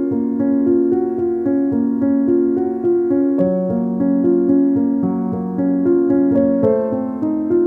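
Background piano music: a steady run of notes stepping through a melody.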